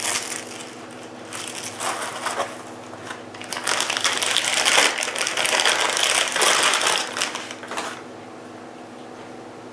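Packaging being handled during an unboxing: rustling and crinkling with small clicks, in short bouts at first, then loudest and most continuous from about three and a half to eight seconds in, where it stops.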